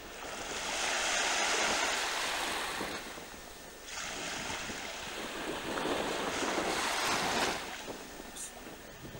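Wind and choppy water on open sea, with gusts rushing over the microphone that swell and ease. The gusts drop off about three seconds in and again near the end.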